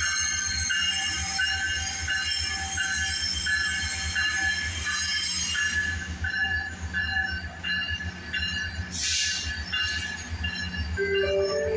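Steel train wheels squealing as a Metrolink train rolls slowly through the station, several high-pitched tones coming and going over a low diesel rumble, the squeal easing after about six seconds. A short hiss about nine seconds in.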